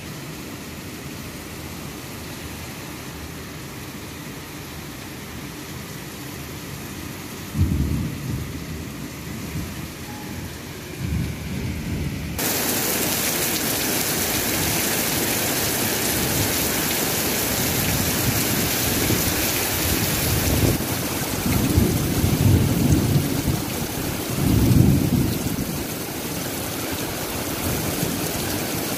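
Heavy downpour in a thunderstorm: a steady hiss of rain with low rumbles of thunder about eight and eleven seconds in, then more, louder rumbles in the last third. About twelve seconds in, the rain hiss suddenly gets louder and brighter.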